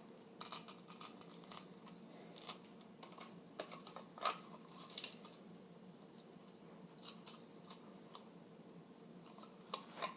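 Faint, scattered clicks and scrapes of a raw potato half being handled and slid on a mandolin slicer, with the sharpest clicks a little past four seconds in.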